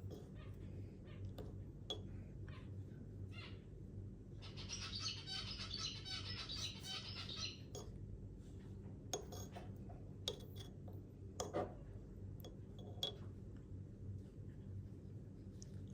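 Zebra finch chick's begging calls: a dense burst of rapid, high chirping lasting about three seconds near the middle, with a few short calls before and after, over a steady low hum.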